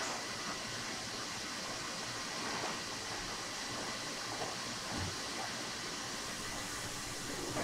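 Steady hissing kitchen background noise, with a few faint soft handling sounds as gloved hands work on plastic wrap.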